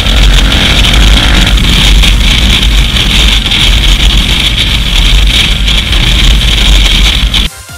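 Loud, distorted wind roar on a GoPro camera mounted on a moving KTM 990 Adventure motorcycle, with the bike's V-twin engine faint beneath it. It cuts off abruptly near the end as electronic music comes in.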